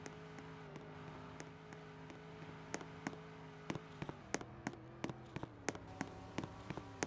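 Faint, steady hum of an idling engine, most likely the Maserati Levante Trofeo's twin-turbo V8, whose pitch steps down about four seconds in. Sharp ticks start about three seconds in and come more and more often.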